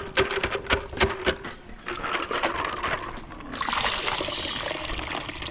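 Water pouring, starting about three and a half seconds in, after a few scattered clicks and knocks.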